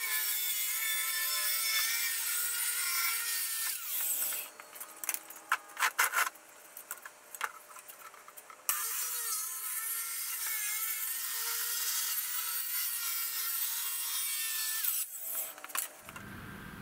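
Handheld circular saw cutting through a thin board sheet, the blade whining steadily for about four seconds, then stopping. A few knocks of handling follow before the saw starts again and cuts for about six more seconds, ending with a few clunks.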